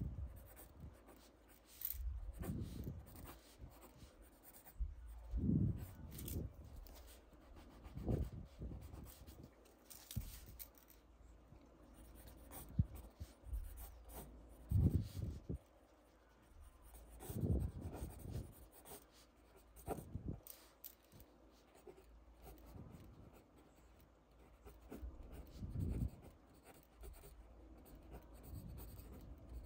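Pencil sketching on paper: irregular scratching strokes of graphite, with a few soft low thuds scattered through.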